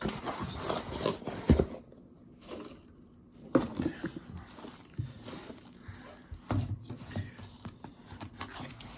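Packaging being handled and opened by hand: irregular rustling and crinkling with a few sharp knocks, the loudest about a second and a half in and another about three and a half seconds in.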